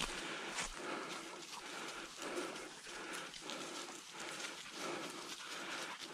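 Footsteps of a person walking through dry grass and leaves, a steady crunching about two to three steps a second.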